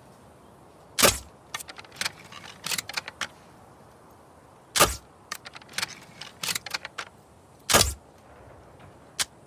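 Crossbow shot three times, about three seconds apart, each sharp release followed by a run of lighter mechanical clicks and rattles; two single clicks near the end.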